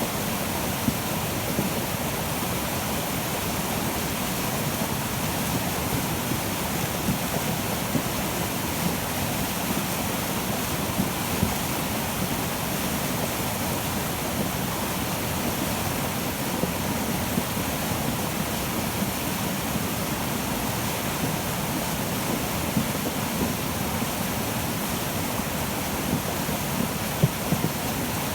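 Glacier-fed White River rushing in a steady, full noise, with a few brief sharper sounds over it.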